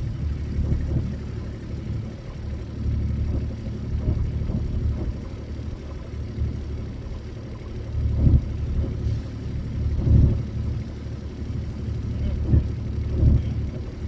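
Kubota utility vehicle's engine running steadily, with wind gusting hard on the microphone several times in the second half.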